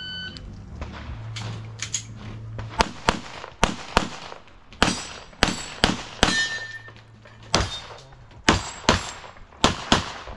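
A brief electronic shot-timer beep, then a rapid string of pistol shots, many fired in quick pairs, continuing throughout.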